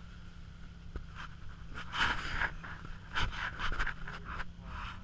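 Knit glove rubbing and brushing against the camera, heard as irregular scratchy handling noise, heaviest in the second half, over a low steady hum.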